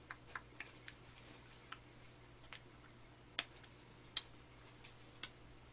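Quiet eating sounds of someone eating whipped cream from a spoon: a run of small soft clicks in the first second, then three sharper clicks about a second apart.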